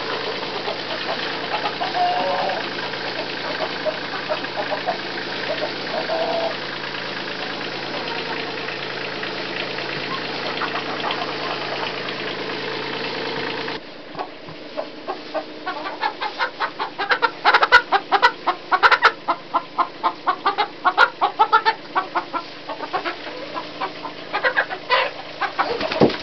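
Wood shavings rustling and scraping as they are kicked across the coop floor, over a steady low mechanical hum. After a cut about halfway in, hens clucking in a fast run of short clucks.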